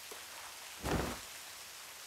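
Steady rain falling, with a short, louder low rush about a second in.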